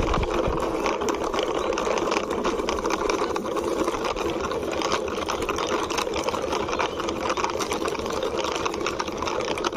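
Plastic wheels of a small toy vehicle rolling as it is pushed along by hand, a steady rapid rattle of fine clicks.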